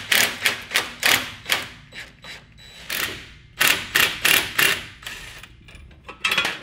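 Hand tools working the bolts on a go-kart's rear axle mount loose: quick, sharp metallic clicks about four a second, in three spurts with short pauses between.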